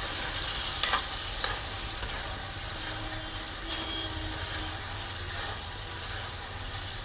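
Chicken pieces frying and sizzling in a metal kadhai as they are stirred with a steel spoon, with scrapes and clinks of the spoon against the pan; a sharp clink about a second in is the loudest.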